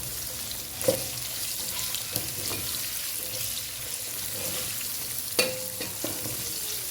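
Chopped onion, ginger, garlic and spices sizzling in hot oil in a cooking pot, stirred, with a utensil knocking against the pot a few times, loudest about five seconds in.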